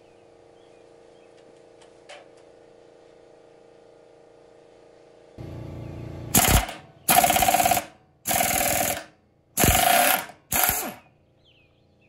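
Pneumatic impact wrench hammering in five short, loud bursts to unscrew a water heater's sacrificial anode rod, seized too tight to break loose by hand.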